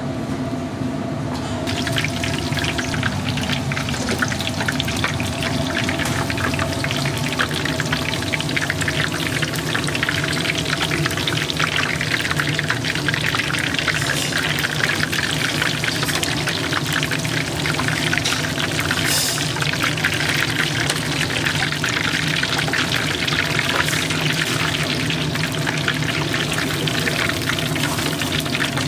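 Twigim (Korean fritters) deep-frying in hot oil: a dense, steady sizzle full of fine crackles, starting suddenly about a second and a half in.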